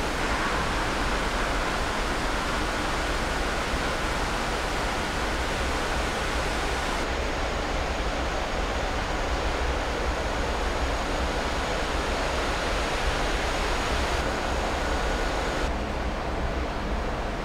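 Steady rushing noise of a moored warship's ventilation fans and machinery, with a faint thin whine over it that fades out about halfway and briefly returns near the end.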